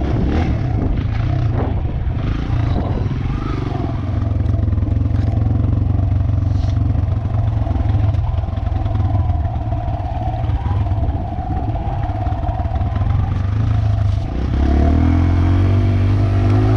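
Dirt bike engine running steadily under throttle, with sharp clattering knocks in the first few seconds; near the end it eases off briefly, then revs up with a rising pitch.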